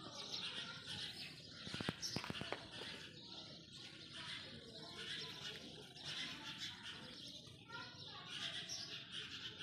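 Outdoor background of indistinct voices and chirping birds, with a quick run of sharp clicks about two seconds in.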